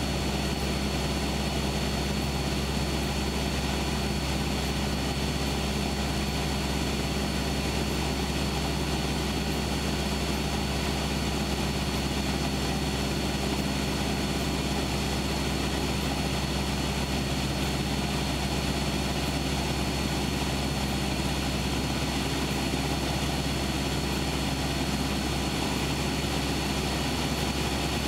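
Cessna 172's piston engine and propeller droning steadily, heard from inside the cabin, at an unchanging power setting, with a faint steady high whine over it.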